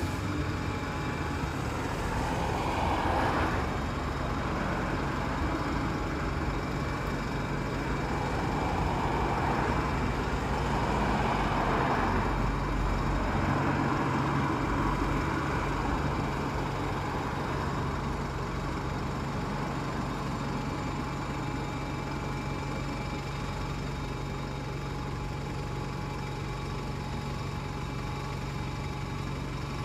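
London double-deck bus's diesel engine idling steadily while parked. A broad rushing noise swells and fades a few times in the first half.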